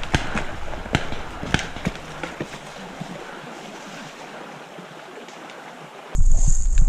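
Sharp pops of paintball markers firing, several in the first two seconds, over the steady rush of a creek. About six seconds in the sound cuts abruptly to a louder low wind rumble with a steady high whine.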